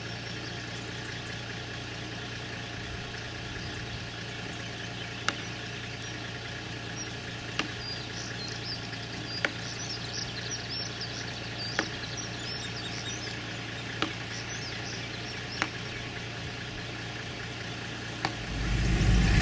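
Firewood being chopped with a hand tool: about seven sharp knocks, roughly two seconds apart, over a steady low hum.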